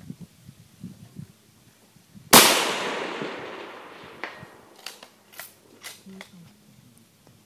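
A single rifle shot from a .308 Remington 700 bolt-action rifle, a loud crack about two seconds in with a long echo trailing off over about two seconds. A few short, sharp clicks follow over the next two seconds.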